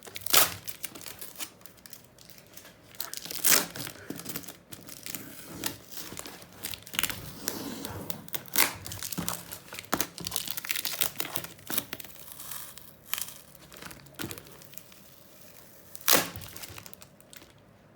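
Parcel packaging being crinkled and torn open by hand: irregular rustling with a few sharp, louder crackles, the loudest near the start and about two seconds before the end.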